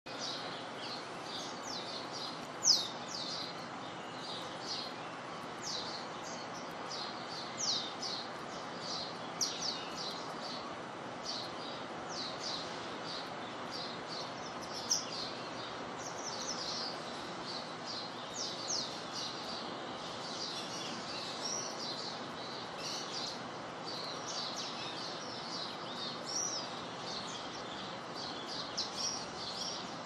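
Birds chirping with many short, quick, high calls throughout, over a steady hiss of light rain. One chirp about three seconds in stands out louder than the rest.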